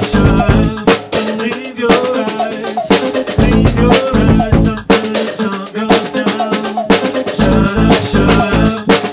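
Instrumental live-looping jam: a steady drum beat with strong hits about once a second, over a looped bass riff, with higher melodic lines on top.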